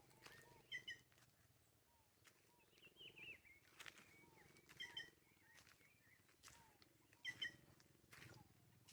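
Several wild birds of the caatinga calling and singing faintly, in short quick chirps and whistles repeated every second or so. A few brief clicks sound, the loudest about seven seconds in.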